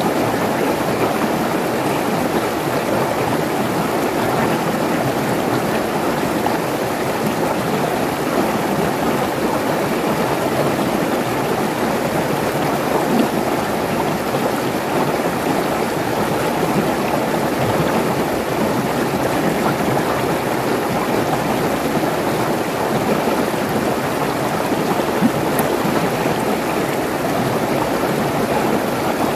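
Mountain stream rushing and splashing over rocks in small cascades: a steady, unbroken rush of water.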